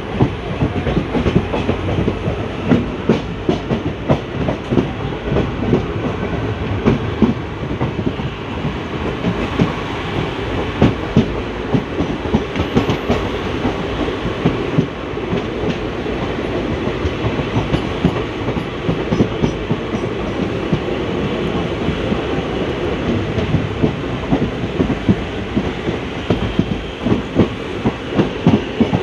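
ICF passenger coach wheels running over the track at speed: a steady rumble with frequent clickety-clack knocks from the rail joints. Heard from inside the moving coach.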